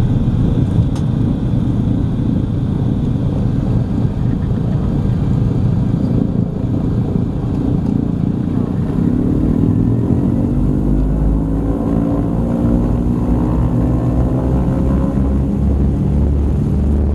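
Douglas DC-3's twin radial piston engines running at taxi power, heard from the cabin over the wing: a loud, steady drone. From about nine seconds in the engine notes waver and drift against each other, and the low rumble grows stronger near the end.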